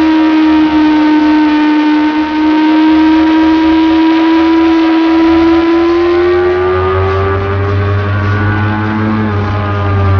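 Motorcycle engine heard from on board at track speed, held at high, steady revs through a long bend; its pitch climbs about six seconds in as the throttle opens and eases back slightly near the end.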